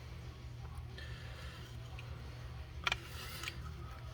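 A short cluster of sharp clicks about three seconds in as small gauge-cluster parts are handled, over a steady low hum.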